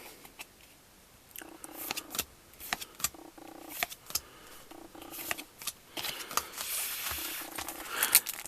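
Trading cards being handled, with light clicks and snaps as cards are flicked through. From about six seconds in, a foil booster-pack wrapper crinkles. A soft low hum recurs every second and a half or so underneath.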